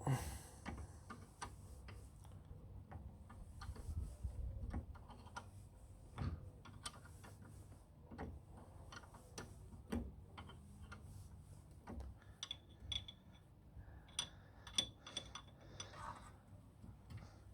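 Spanner working on a brake caliper bolt: irregular light metallic clicks and knocks, with a few brief ringing clinks of metal on metal in the last few seconds.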